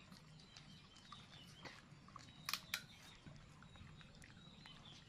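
Near silence with a few soft clicks and taps. The loudest are two close together about two and a half seconds in.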